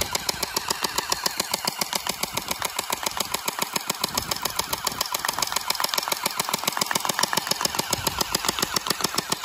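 Electric R99 gel ball blaster firing on full auto: a rapid, even rattle of shots without a break, over the whir of its battery-driven motor and gearbox.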